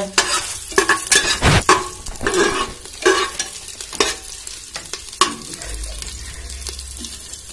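A flat metal spatula scrapes and knocks against the bottom of a pressure cooker at irregular intervals while it stirs whole spices and chillies frying in hot oil. A light sizzle runs underneath.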